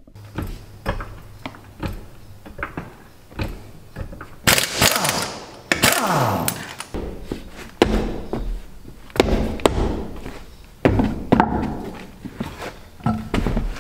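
Pneumatic impact wrench hammering the lug nuts off a car's front wheel in several short bursts, one followed by a falling whine as the air motor spins down. Lighter clicks and knocks come in the first few seconds.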